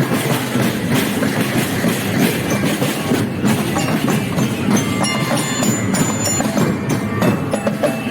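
Marching drum band playing: drums beating a fast, dense, steady rhythm.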